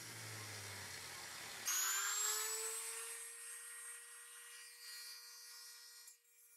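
A motor-driven polishing wheel on a tapered spindle running with a low hum as it polishes the brass tank. About a second and a half in, this gives way to a handheld rotary tool's high whine, which rises in pitch as it speeds up and then runs steadily as its wheel and sanding drum are worked over the brass.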